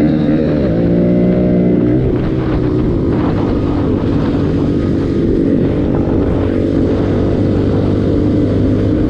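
Motorcycle engine running under way, its pitch dipping and climbing with the throttle in the first couple of seconds, then holding fairly steady.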